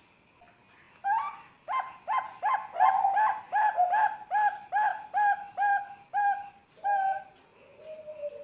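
Young zebra dove (Bangkok perkutut), about three months old, cooing: a fast run of short coos, roughly three a second, starting about a second in and stopping about seven seconds in, followed by a softer, lower coo near the end.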